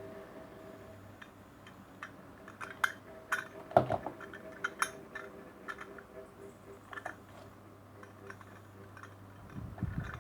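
Small metallic clicks and clinks, scattered and irregular, as a steel paper clip is bent through a Zippo lighter's hinge, the loudest a little under four seconds in.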